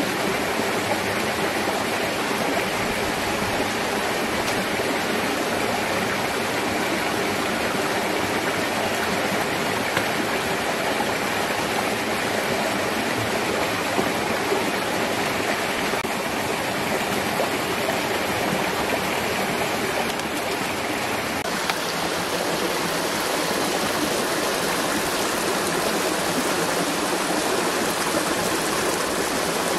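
Steady rushing of flowing water, an even hiss with no let-up, whose tone shifts slightly about two-thirds of the way through.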